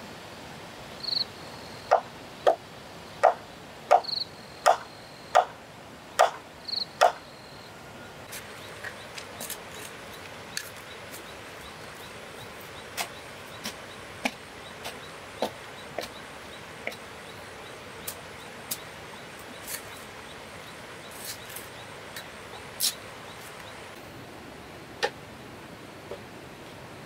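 Sharp knocks and clicks from handwork on a bamboo footbridge and its bank. About ten come in quick succession in the first seven seconds, followed by sparser, lighter ticks, over a faint steady insect whine.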